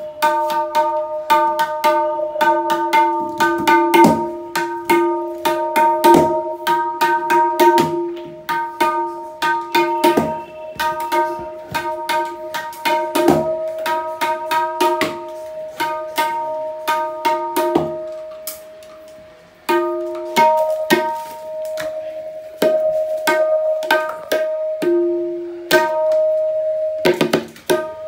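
Sheesham-wood tabla dayan, the right-hand treble drum, struck in quick runs of strokes, each ringing at a clear tuned pitch as the drum is played to show its tone. The playing stops for a moment about two-thirds of the way through, then carries on.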